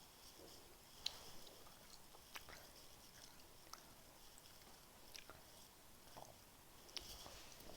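Faint, close mouth sounds of someone chewing a chewy sour sweet: soft wet smacks and tongue clicks, about five sharper ones spaced a second or so apart.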